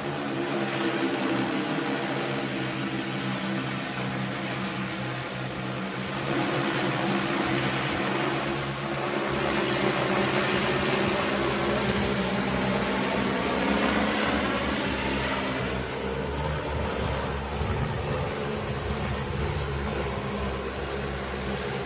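Propellers of a large hose-fed quadcopter cleaning drone humming steadily as it comes down and lands, getting louder from about six seconds in as it nears.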